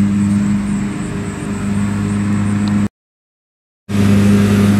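A steady low mechanical hum with no change in pitch, broken about three seconds in by a second of dead silence where the recording is cut.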